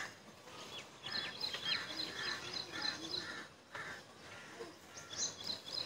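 Birds calling and chirping repeatedly in the background, many short calls in quick succession.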